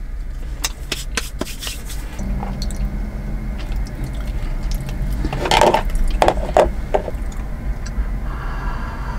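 Table handling sounds from making and drinking drip coffee: scattered small clicks, then a cluster of louder crinkles and drips about halfway through as a paper drip-coffee bag is worked over a metal cup, and a sip near the end. A steady low hum runs underneath.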